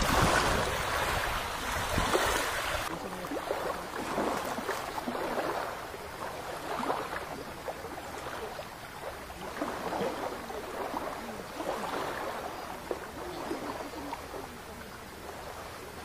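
Small waves lapping softly and repeatedly on a river's sand and pebble shore. Wind buffets the microphone for the first three seconds, then stops abruptly.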